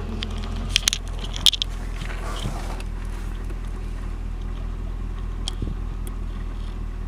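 Supercharged 6.2 L LSA V8 idling steadily, a low even hum, with a few sharp clicks about a second in.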